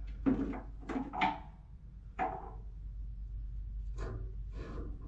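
About six short creaks and squeaks of metal fittings being worked by hand and tool at the top of a tank water heater, over a faint steady low hum.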